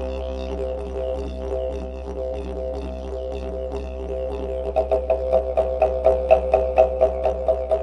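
Didgeridoo music: a steady droning tone that, about five seconds in, turns into a pulsing rhythm of about three beats a second.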